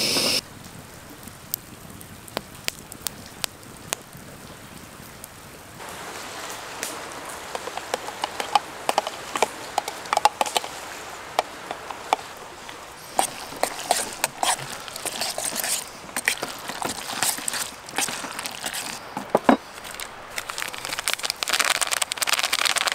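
A frying pan heating on a camp stove, with irregular crackling and popping over a soft sizzle. The sizzle steps up about six seconds in and grows louder again near the end.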